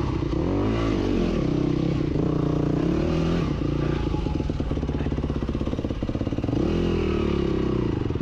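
Yamaha dirt bike engine revving up and down in short bursts while the bike is worked up rock ledges. It drops back to a slow, chugging low-rev run in the middle and revs again near the end.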